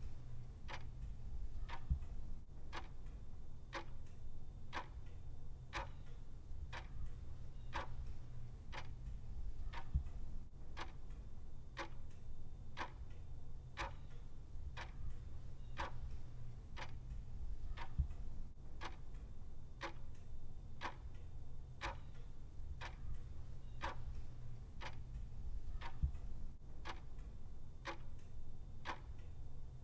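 Clock ticking in a steady, even rhythm, somewhat faster than one tick a second, over a faint low hum, with a slightly louder knock about every eight seconds.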